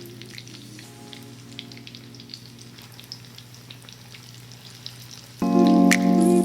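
Flour-coated rabbit pieces frying in hot oil in a cast iron skillet, a light scattered crackle and sizzle. About five seconds in, background music comes in much louder and drowns it.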